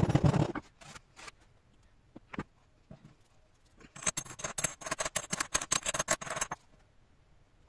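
A rubber mallet thumping rammed moulding sand in a casting flask at the start, then a few light knocks. From about four seconds in, a small metal tube scrapes the moulding sand around the pattern in a quick run of rasping strokes lasting about two and a half seconds.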